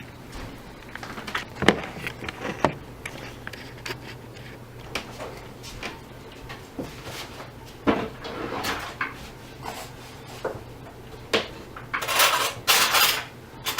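Kitchen utensils and dishes being handled: scattered clinks and knocks, then a longer rattling clatter near the end, over a steady low hum.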